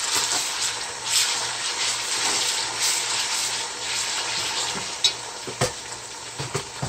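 Sliced onions and ginger-garlic paste sizzling in hot oil in a metal pot, stirred with a metal slotted spoon that scrapes the pot. A few sharp metal clinks come near the end.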